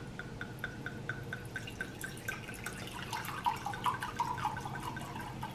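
Red wine poured from a bottle into a glass, glugging in a quick, even rhythm of about four glugs a second.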